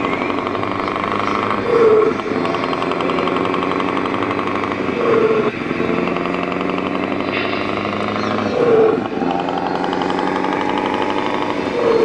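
Remote-control model truck running, a steady engine-like drone with a brief louder swell about every three and a half seconds.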